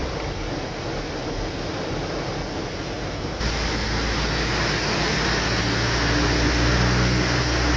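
Steady road and rain noise heard from inside a moving car in a downpour. About three and a half seconds in it cuts to a louder rushing noise with a low engine hum under it.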